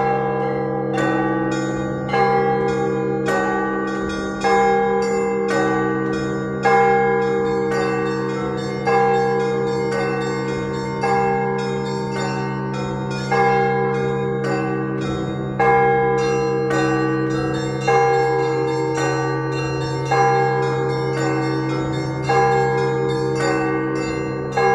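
Russian Orthodox church bells rung in a zvon. A heavy stroke sounds about every two seconds, with quicker strikes of smaller bells between, and the low bells keep humming underneath.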